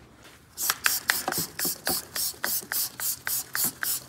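Hand ratchet wrench clicking in quick, regular strokes, about four to five a second, starting about half a second in.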